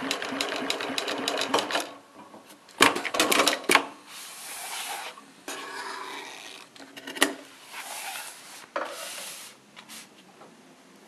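Golden Wheel CSU 8671DN industrial binding sewing machine stitching at a fast, even rhythm, stopping about two seconds in. Then come a few sharp clicks and rustling as the binding tape is cut with scissors and the work is handled.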